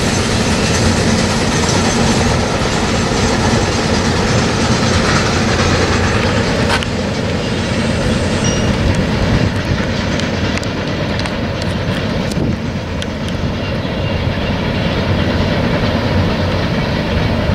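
Freight train cars rolling along the rails: a steady, loud rumble with wheel clatter, and a few sharper clicks past the middle.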